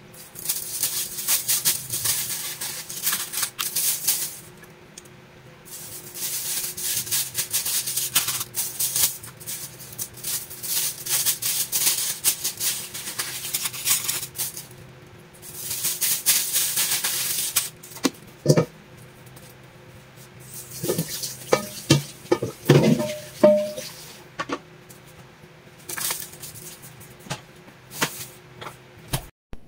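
Thin plastic bags crinkling and rustling in long bursts as they are handled and wrapped around fish. In the second half come a few sharp knocks and thuds.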